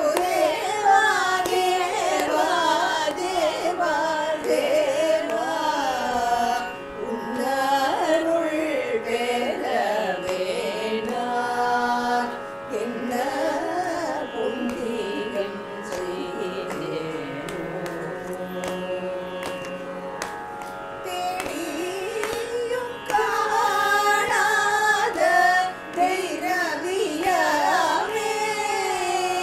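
A group of women singing a Carnatic devotional song together in unison, with a steady drone held underneath.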